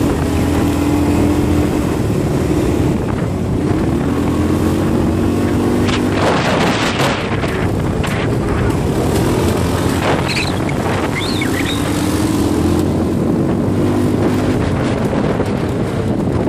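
ATV engine running under way, its pitch rising and falling several times with the throttle, with wind buffeting the microphone and a loud gust about six seconds in.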